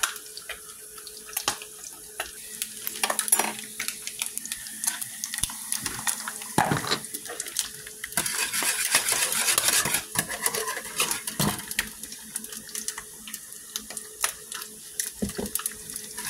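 Water boiling in a saucepan as grits are cooked in it, with a wire whisk clicking and scraping against the pot. A louder stretch of rushing hiss comes about eight to ten seconds in.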